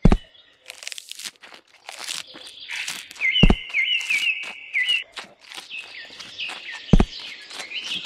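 Crunching, tearing chewing sounds of cattle eating green leaves, with small birds chirping over and over and three sharp knocks about three and a half seconds apart.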